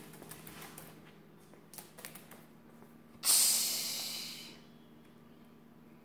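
Umbrella cockatoo giving a loud hiss about three seconds in, starting suddenly and fading away over about a second, after a few faint clicks.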